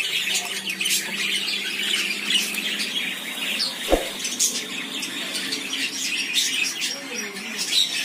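Many caged birds chirping and squawking together, a dense, continuous chatter with parrots among them. A single sharp thump falls about four seconds in.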